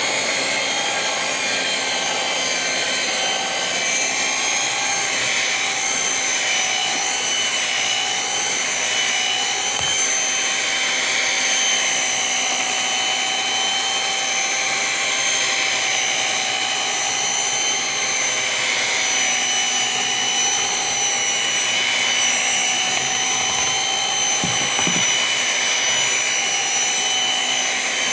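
Electric mixer running steadily at speed, beating a thick, cookie-like dough, with a constant motor whine.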